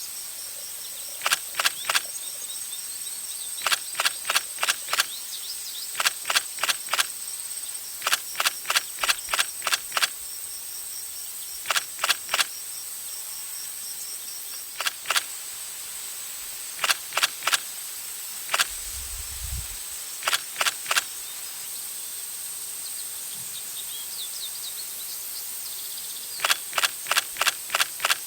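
Runs of three to six sharp, rapid clicks, repeated every few seconds, over a steady high-pitched drone and outdoor background noise; a short low thump comes about two-thirds of the way through.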